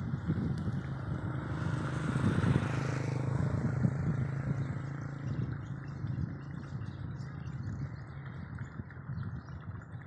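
A motor vehicle's engine passes, its sound swelling to a peak about two to three seconds in and then fading, over a low outdoor rumble. Faint bird chirps come through in the second half.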